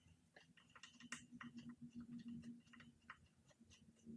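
Faint, irregular small metallic clicks and ticks of rack mounting bolts being fitted by hand onto an e-bike's rear rack.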